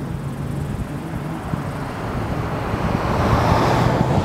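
Wind noise on the microphone over a low, steady engine hum, swelling into a louder rush about three seconds in.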